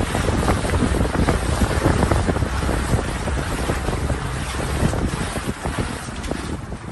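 Wind buffeting the microphone on a small boat at sea, a gusty rumbling rush with the wash of water beneath it, easing off near the end.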